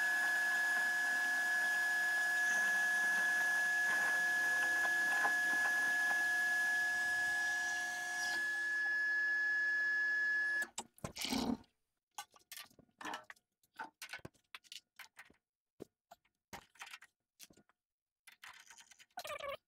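Metal lathe running with a steady high whine while a parting tool cuts through solid stainless steel rod. The machine sound stops abruptly about ten seconds in, followed by scattered light clicks and knocks as the parted-off piece is handled.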